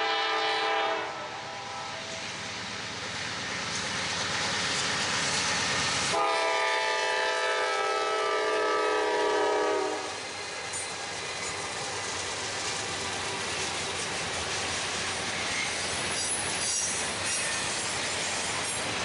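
A train passing on the Norfolk Southern line: the locomotive's air horn sounds a short blast, then about five seconds later a long blast of about four seconds that dips slightly in pitch near its end, over the steady noise of the train running by. A few faint high wheel squeals come near the end.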